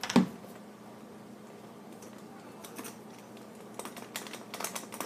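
Light clicks and taps of hands and a small plastic feeding spoon working at a baby doll's mouth, with one louder knock right at the start and a cluster of clicks near the end.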